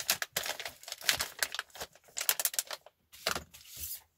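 Quick irregular clicks, taps and light rustles of small objects and paper packaging being handled.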